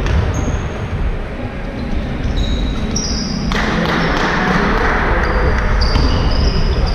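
Basketball game sounds in a gym: a ball bouncing on the court and short high shoe squeaks as players run. From about three and a half seconds in there is a stretch of rushing noise.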